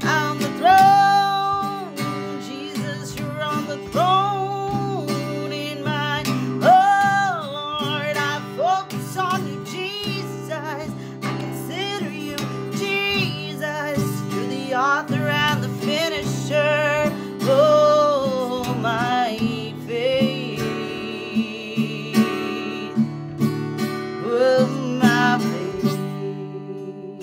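A woman singing a slow, spontaneous worship song to her own strummed acoustic guitar. Near the end her voice drops out and the guitar keeps strumming.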